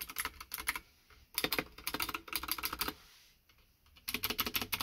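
Typing on a 60% mechanical keyboard with clicky Cherry MX Blue switches: fast runs of keystrokes in several bursts, with a pause of about a second near three seconds in.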